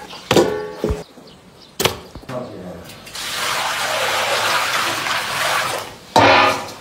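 Water poured from a stainless steel bowl into a large pot, a steady splashing pour lasting about three seconds. There are short ringing knocks near the start and a loud ringing strike near the end.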